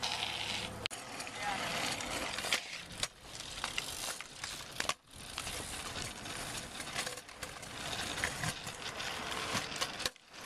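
Stunt scooter wheels rolling on asphalt and concrete: a continuous rolling noise, with occasional sharp clacks of the wheels and deck striking the ground. The sound cuts out briefly about halfway through and again near the end.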